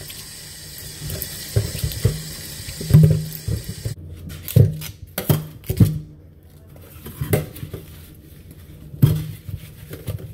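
Water running from a kitchen tap into a stainless steel sink while fruit is rinsed by hand, with repeated low thuds and knocks as the fruit is handled and set down in the sink. The steady hiss of the stream falls off about four seconds in.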